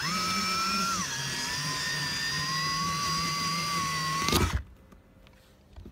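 Cordless drill running under load, boring out a hole in an RV roof. The motor's whine drops in pitch about a second in as the bit bites and then holds steady. It rises briefly and stops with a short clatter about four and a half seconds in.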